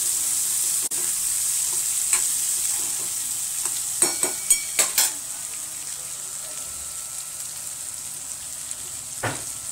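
Boiled chickpeas frying in oil in a kadhai, a steady sizzle, while they are stirred with a spoon. A quick run of sharp clicks of the spoon against the pan comes about four to five seconds in, after which the sizzle is quieter.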